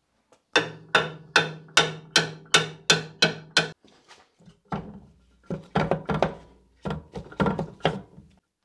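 Hammer blows on a Citroën Mehari/2CV rear suspension arm, knocking out the wheel bearing: a quick, even run of about eight metallic strikes, each with a short ring, then a brief pause and a second, more irregular run.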